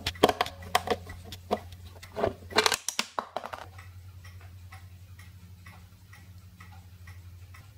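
A flat-blade screwdriver working a pin-in-star security screw out of a plastic housing: irregular sharp clicks and scrapes for about the first three seconds. After that, only faint regular ticking, about two a second, over a low steady hum.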